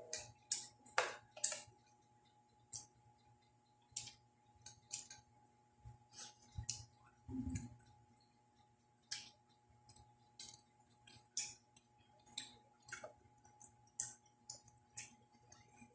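Close-up eating sounds: irregular clicks and smacks of chewing and lips, about two a second, with a few duller sounds in the middle.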